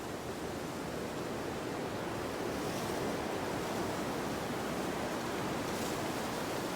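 Gusty wind blowing in a steady rush, with a brief brighter swell about three seconds in and another near the end.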